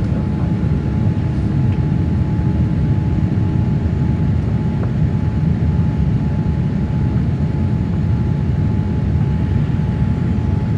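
Jet airliner cabin noise in flight: a steady low rumble, with a faint steady whine running through it.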